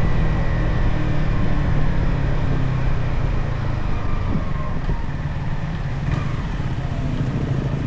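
Yamaha XSR 155's stock single-cylinder engine running on the move, a steady low engine note with wind noise over the microphone.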